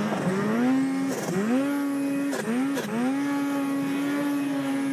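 Snowmobile engine revving, its pitch dipping and rising several times, then holding steady at high revs for about the last two seconds. A couple of short sharp knocks sound around the middle.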